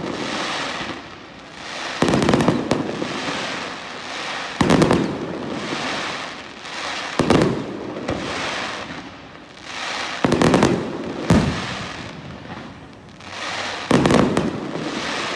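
Fireworks display: aerial shells bursting with about six sharp bangs, roughly every two to three seconds, each followed by a swelling hiss that fades away.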